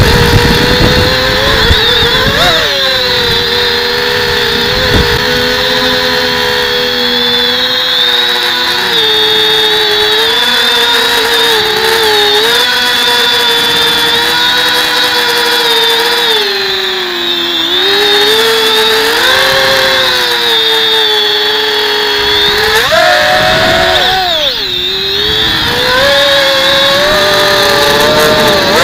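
Whine of a drone's electric motors and propellers, heard up close from its onboard camera, several tones rising and falling in pitch as the throttle changes. Low wind buffeting in the first couple of seconds.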